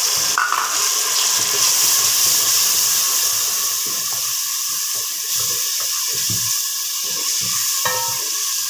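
Water just added to onion-and-spice masala frying in hot ghee, hissing and sizzling loudly and steadily as it boils off in an aluminium pot. A spatula stirs and scrapes the pot underneath.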